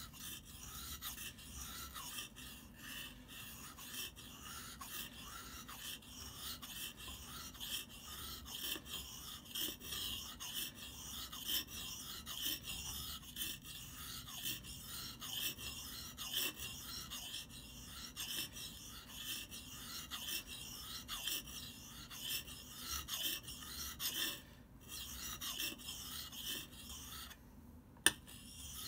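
Hatchet's steel blade stroked back and forth on a wet whetstone, a steady run of gritty scraping strokes while the edge is sharpened. Two short pauses come near the end, one of them with a single sharp click.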